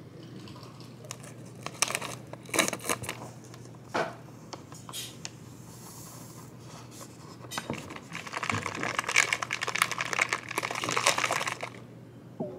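A sachet of vanilla whey protein crinkling and tearing open, then powder pouring. Near the end, a few seconds of dense rattling as a Smartshake shaker cup of coffee and whey is shaken.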